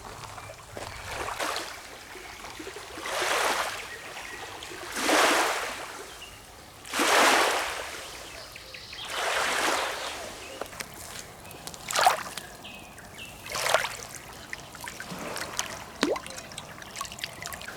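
Small river waves lapping against the bank, a wash of water about every two seconds, with a few sharper splashes in the second half.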